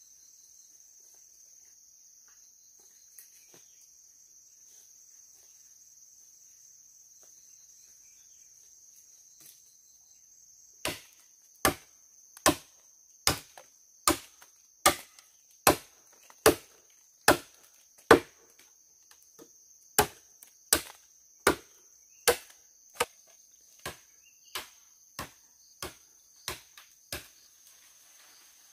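Steady high chirring of insects. From about eleven seconds in, about twenty chopping strikes of a blade on wood come roughly one every 0.8 seconds, with a short break about halfway, loudest in the middle and lighter toward the end.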